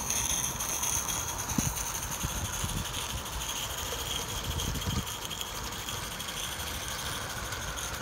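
Accucraft Dolgoch live-steam garden locomotive running past with a steady hiss of steam, its train of small tipper skips rattling and clicking over the track. Wind buffets the microphone.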